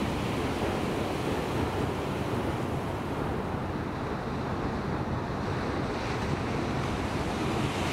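Ocean surf breaking and washing in a steady rush, with wind on the microphone.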